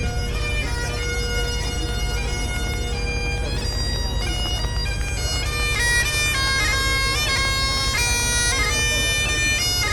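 Bagpipes playing a tune over a steady drone, the melody growing busier and a little louder about six seconds in.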